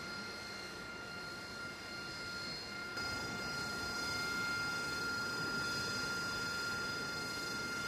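AV-8B Harrier II's turbofan running at ground idle: a steady high whine over a rushing hiss, a little louder from about three seconds in.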